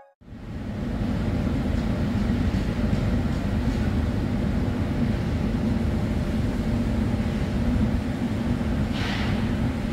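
Steady low engine rumble of heavy machinery, with a brief hiss about nine seconds in.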